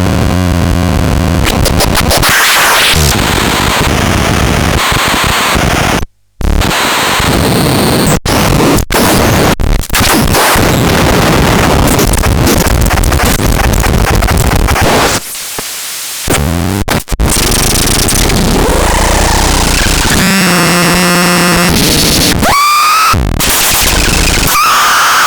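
Harsh electronic noise: loud, dense distorted static that cuts out abruptly about six seconds in and several more times. Near the end come warbling pitched sweeps and a rising squeal.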